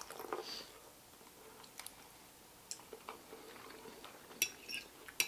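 People chewing food at close range, with a few light, sharp clicks of a fork against a plate; the sharpest clicks come a little past four seconds and near the end.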